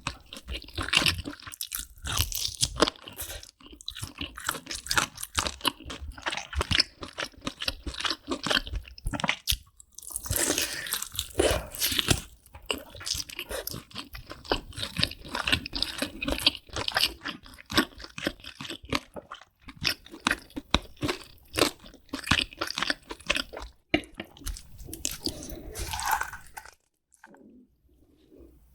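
Close-miked mukbang eating: crunchy bites and steady chewing, many sharp crunches one after another, dying down to near quiet near the end.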